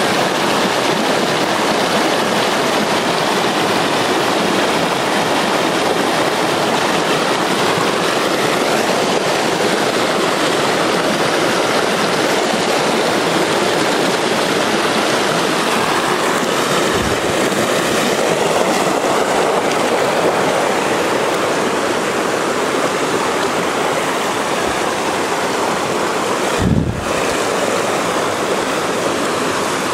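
Mountain stream rushing over rocks: a loud, steady rush of water. A short low thump sounds once a little past halfway and again, stronger, near the end.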